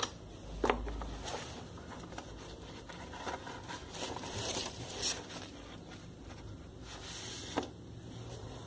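Faint, scattered rustling, scraping and clicking of a padded mailing package being handled and opened by hand.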